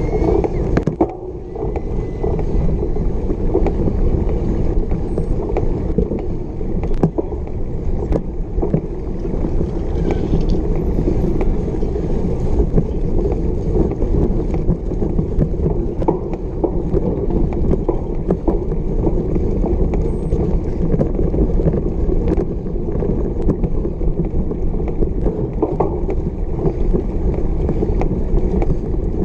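Cyclocross bike ridden fast over bumpy grass, heard through a camera mounted on the bike or rider: a steady rumble of tyres and shaking with scattered rattles and clicks from the bike.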